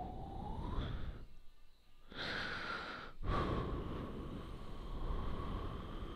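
A latex balloon being blown up by mouth: rushing breath pushed into it in long blows, with a thin steady whistle over the air. There is a pause for breath about a second in and a brief break around three seconds.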